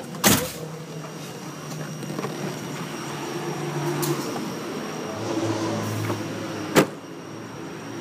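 Old Volvo sedan's engine idling, running on gas (LPG), its hum dropping to a lower pitch about five seconds in. A sharp click comes just after the start and a loud single bang about seven seconds in, the car door being shut.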